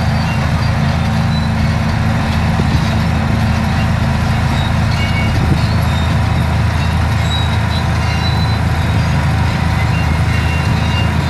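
Crawler bulldozer's diesel engine running, a steady low drone that holds the same pitch throughout.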